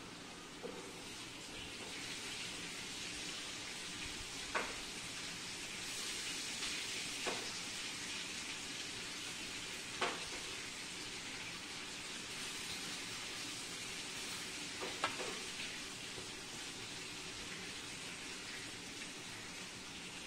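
Steady hiss with four sharp clicks spread through it, as hands handle wool yarn on a newspaper-covered table.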